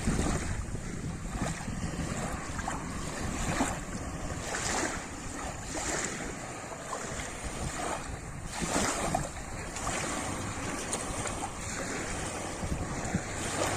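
Small lake waves splashing and lapping against the shore, with separate splashes every second or two over a steady wash of water. Wind is rumbling on the microphone underneath.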